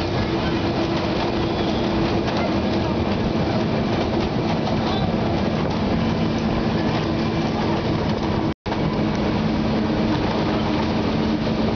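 Narrow-gauge diesel locomotive running steadily under way: an even engine drone with train rumble, heard from the open carriage just behind it. The sound cuts out completely for a split second about two-thirds of the way through.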